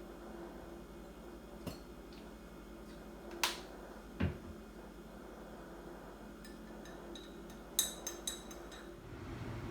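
Tableware clinking as tea is sweetened with agave and stirred: a few scattered clicks, then a quick run of ringing clinks about eight seconds in.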